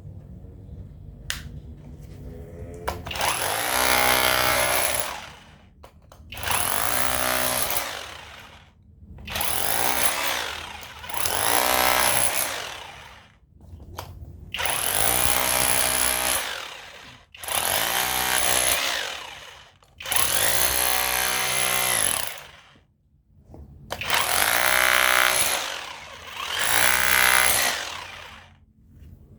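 Cordless rotary hammer breaking up cast concrete in about nine bursts of roughly two seconds each, with short pauses between; the motor whine climbs in pitch as each burst starts.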